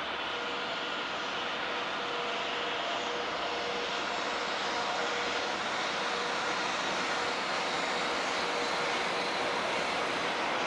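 Electric freight locomotive hauling a container train past, a steady rumble of rolling wagons with a faint steady hum, slowly growing louder.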